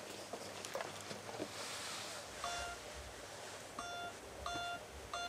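Short electronic beeps at a steady pace, about one every 0.7 seconds, starting about halfway through over a faint low rumble. They are a count-in click in the recording booth just before the song's vocal take begins.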